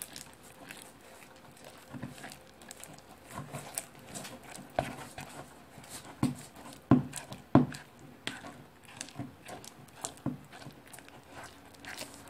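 Sticky glue-and-contact-solution slime being stirred and squished by hand in plastic bowls, giving irregular wet clicks and small pops, with a few louder ones in the middle. The slime is still sticky and not yet set.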